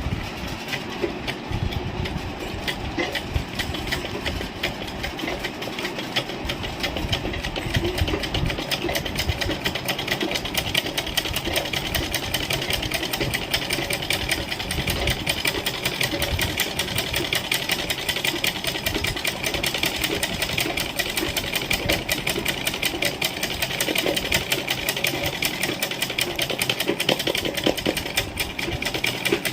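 Household sewing machine stitching steadily at speed, its needle going up and down in a rapid even rhythm, set up for free-motion embroidery with the presser foot removed.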